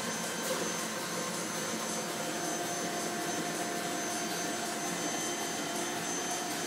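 1982 Heidelberg SORMZ offset printing press running at speed: a steady mechanical whir with a couple of faint steady whines.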